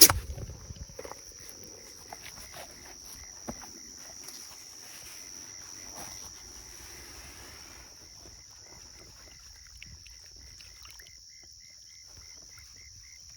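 Night insects, crickets among them, trilling steadily and high-pitched, with a lower chirping of about three a second joining near the end. A sharp click at the very start is the loudest sound.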